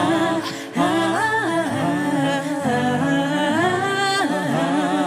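Several voices singing a wordless melody in harmony, with acoustic guitar accompaniment, in a Cantonese pop song. The sung lines glide between notes and hold them for about a second at a time.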